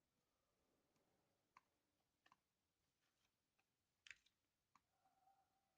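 Near silence with a few faint, short clicks, scattered about four times.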